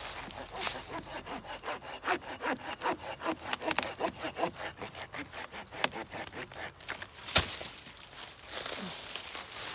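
Cheap folding hand saw cutting a dead branch in quick, uneven back-and-forth strokes, the teeth rasping through the wood; slow, laborious going. A single sharp crack about seven seconds in is the loudest sound, after which the strokes thin out.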